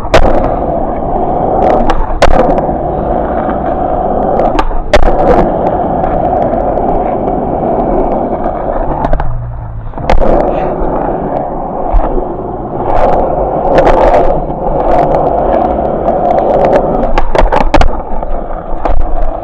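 Skateboard wheels rolling on hard ground, a steady rumble broken by sharp clacks as the board hits the ground. The rolling drops away briefly about nine seconds in, then starts again.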